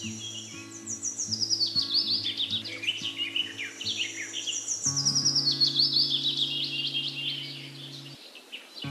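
Background music of held low chords, with rapid bird chirps running down in pitch twice over it. The chords change about halfway through and drop out briefly near the end.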